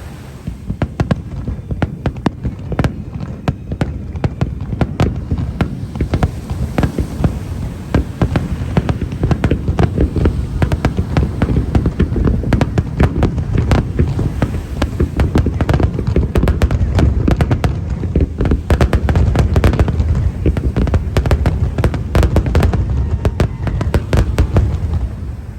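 Fireworks display going off: rapid, overlapping booms and crackling bursts, building to a dense barrage in the second half.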